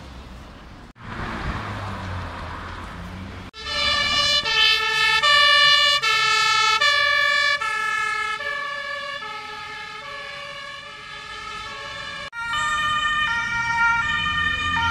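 Street traffic noise, then a German two-tone emergency siren (Martinshorn) switching back and forth between two pitches, each held about half a second. It comes first from a passing fire engine and, after a cut about 12 seconds in, from an ambulance.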